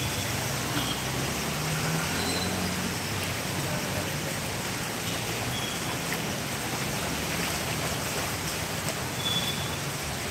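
Steady rushing noise of heavy rain and floodwater on a city street, with vehicles driving through the water.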